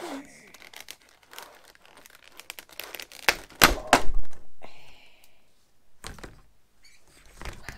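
Circular saw blade packaging being handled: rustling and crinkling with scattered clicks, and a cluster of loud thunks a little past the middle.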